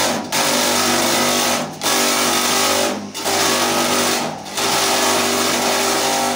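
Electric-motor chaff cutter running and chopping handfuls of green stalks fed into its hopper: a loud, dense chopping noise over a steady motor hum, broken by short dips about every second and a half as one handful goes through and the next is pushed in.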